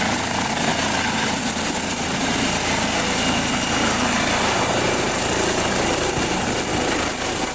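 Helicopter sound effect: a steady rotor and engine noise with a thin high whine over it, starting and stopping abruptly.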